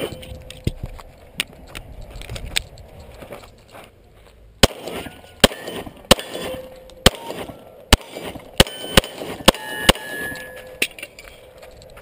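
Glock 19 Gen 4 pistol firing a string of shots at steel targets, several followed by a short metallic ring from a struck plate. The shots come at irregular intervals, with a pause of about two seconds near the middle.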